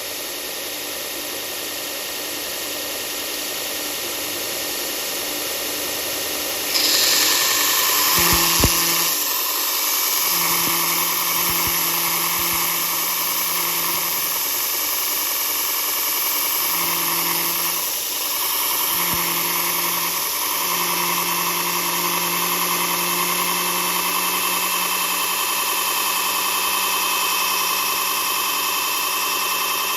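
Electric power sander running and sanding, a steady rough whir. About seven seconds in it turns suddenly louder and brighter, and after that a low hum comes and goes in stretches as the tool works.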